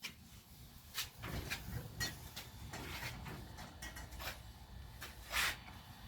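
Scattered light clicks and knocks of handling, with a brief louder scrape or rustle about five seconds in, over a faint low rumble.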